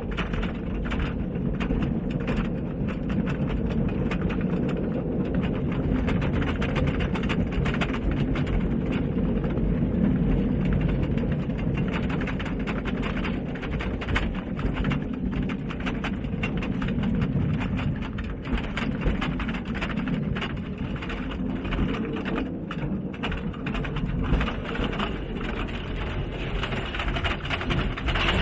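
Small mine-railway trolley train running on its rails, with a steady low rumble and a constant rattling and clattering of the wheels and cars.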